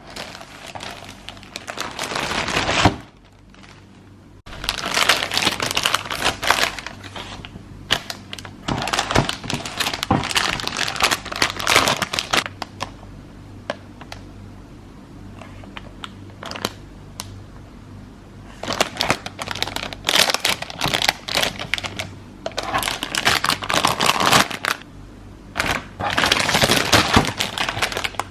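Plastic packaging crinkling and rustling in bursts of a few seconds at a time, with short pauses between, as items are handled and unwrapped.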